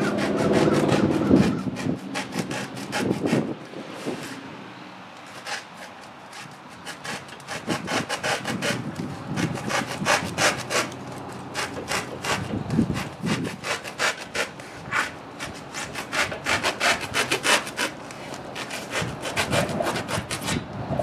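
A knife sawing back and forth through a foam pool noodle in quick, repeated scraping strokes. The foam squeaks as it is handled at the start.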